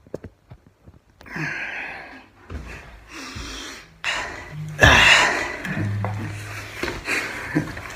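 Close rustling and knocking as someone moves right by the microphone and picks up an electric guitar, the loudest burst a little past halfway. A low steady tone rings for a couple of seconds in the middle.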